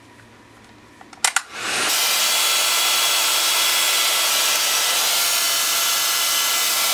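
Handheld hair dryer: a couple of clicks a little over a second in as it is switched on, then it blows with a loud, steady hiss and faint steady whine tones.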